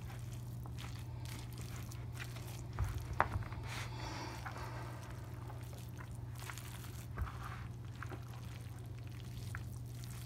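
Plastic spatula stirring hot cooked rice with sausage and olives in a plastic bowl: soft squishing and scraping, with a few louder knocks about three seconds in and one near seven seconds. A steady low hum runs underneath.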